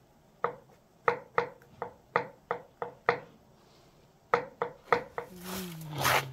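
A series of about a dozen sharp knocks in an uneven rhythm, two to three a second. In the last second a low, held, voice-like call begins.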